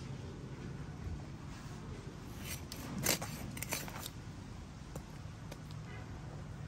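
Raw chicken being cut on a boti, a curved blade on a foot stand. There are a few short cuts and scrapes of meat and bone against the blade, the loudest about three seconds in.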